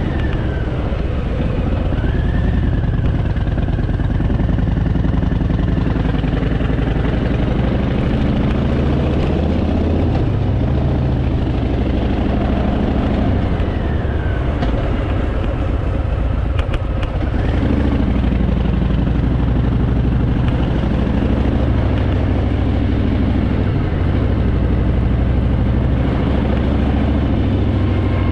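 Harley-Davidson Fat Boy's V-twin engine running under way, its pitch rising and falling with throttle and gear changes.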